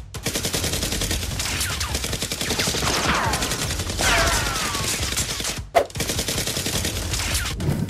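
Rapid automatic gunfire, dense continuous bursts of shots standing in for the blasters' fire, with two falling whistles about three and four seconds in. A short break just before six seconds is followed by a single loud crack, then the rapid fire resumes.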